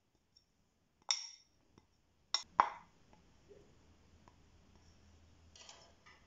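Sharp clinks of a small bowl knocking against a stainless steel mixing bowl: one about a second in, then two close together, the second the loudest. Near the end a short soft scrape as a spoon goes into the flour.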